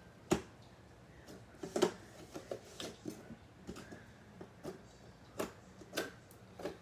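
Clear slime being squished and stretched by hand, giving a string of irregular short wet clicks and pops.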